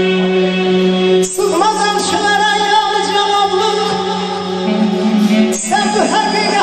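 Live Azerbaijani band music: a male singer enters about a second in with a long, wavering, ornamented vocal phrase over clarinet and accordion accompaniment with a held drone note, and starts a new phrase near the end.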